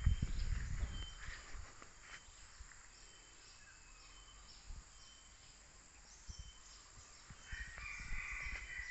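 Plantation ambience: a steady high insect drone with short high chirps repeating about once a second, a few footstep thumps in the first second or so, and a longer bird-like call with several tones near the end.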